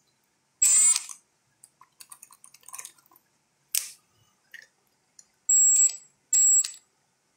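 Three short bursts of a cordless power tool whining as it spins a socket on bolts of the rocker assembly on an International Harvester B275's cylinder head, loosening them so the head can be re-torqued for a leaking head gasket. The first burst comes about half a second in and the other two near the end, with light metallic clicks between them.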